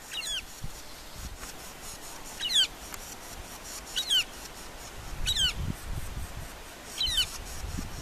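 Northern flicker calling at the nest: five short, high, downward-sweeping calls, one about every second and a half. A low rumble sounds underneath around the middle.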